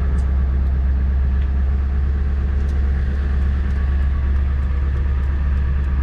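Steady low drone of a Ford 7.3 L diesel truck's engine and road noise, heard from inside the cab while driving slowly, with a few faint light ticks.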